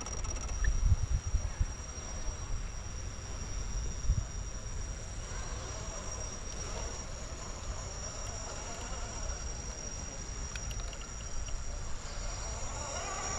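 Insects drone in one steady high tone, over a low rumble with a few thumps around the first second and again about four seconds in.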